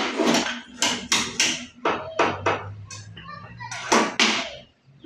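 A rapid string of sharp knocks and short scrapes as a tape measure and metal rule are handled and laid against a melamine-faced particleboard cabinet top for marking, with a faint low hum in the middle.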